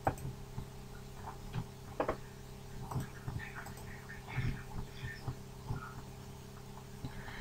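Faint scattered clicks and small knocks over a steady low electrical hum from an open computer microphone: a computer mouse being clicked and handled near the mic.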